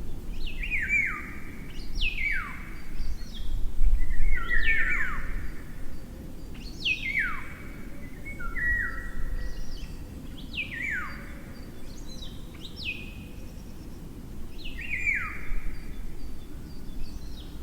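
Eurasian golden oriole singing: short fluting phrases of downward-sliding whistles, repeated about every two seconds, over a low background rumble.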